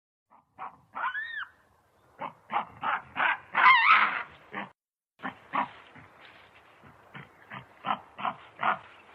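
Creature sound effect built from gorilla and baboon recordings: a string of short primate grunts and barks. A brief call that rises and falls in pitch comes about a second in, the loudest call, wavering in pitch, comes around four seconds, and a run of quicker, quieter grunts follows.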